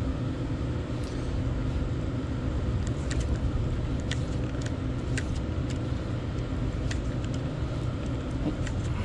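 Steady low rumble of road traffic, with a few scattered light clicks from the spinning reel and rod being handled.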